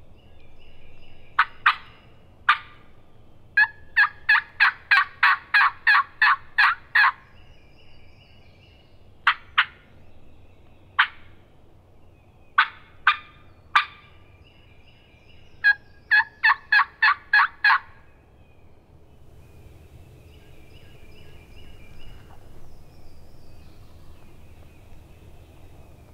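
Hen turkey yelps made close by on a hand-held turkey call: two runs of sharp, loud notes at about three a second, with single notes and short pairs between them, stopping a few seconds before the end.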